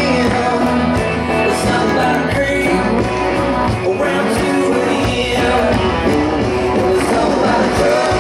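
Country song with a singing voice, played for line dancing.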